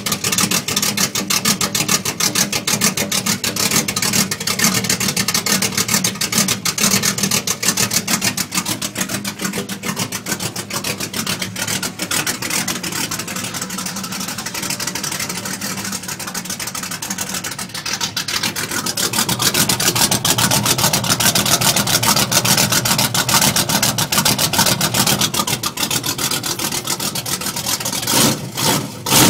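4x4 pickup truck's engine running straight-piped, its mufflers cut off so the exhaust is open. It runs steadily, gets louder for several seconds past the middle, and gives two short louder bursts near the end.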